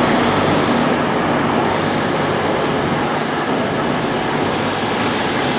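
CrossCountry HST coaches rolling slowly past a platform as the train arrives: a steady rumble and rush of wheels on rail.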